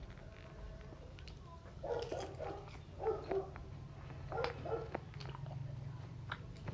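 A dog barking in a few short bursts over a low steady hum, with faint clicks in between.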